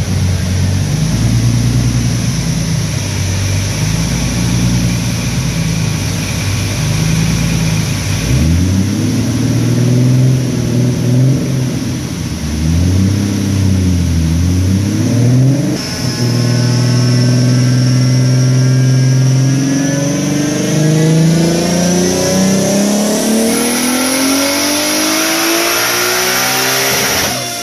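1995 Toyota Supra's inline-six engine running on a chassis dyno during tuning: held at steady revs for several seconds, revved up and down, then held high. In the last several seconds the revs climb steadily, with a high whine rising over them.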